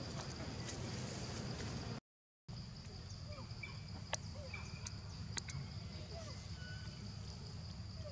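Outdoor ambience: a steady high insect drone over a low rumble, with short bird chirps scattered through and two sharp clicks near the middle. The sound cuts out completely for about half a second a couple of seconds in.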